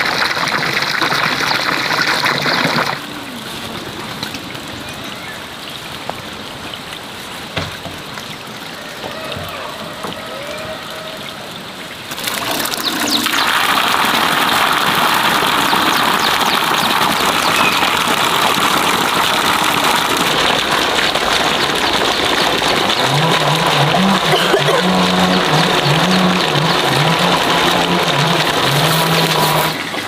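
Steady rush of running water, starting suddenly about twelve seconds in, after a quieter stretch of outdoor ambience.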